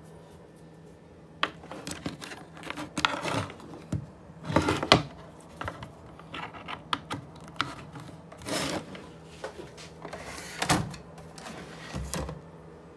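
Handling noise from a phone held up against a desk and router cables: irregular clicks, knocks and short scraping rubs, loudest about halfway through.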